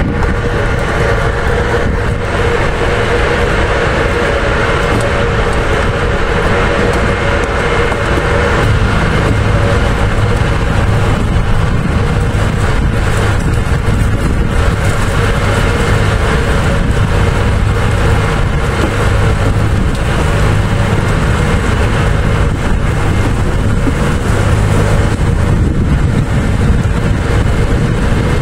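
Small wooden boat's motor running steadily, a loud even hum that grows a little heavier about a third of the way through.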